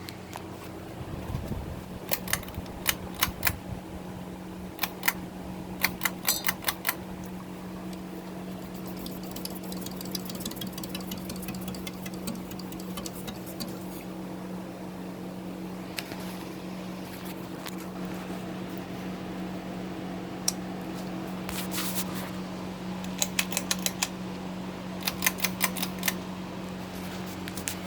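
Hampton Bay Carriage House 52-inch five-blade ceiling fan running with a steady motor hum, broken by short clusters of sharp clicks every few seconds.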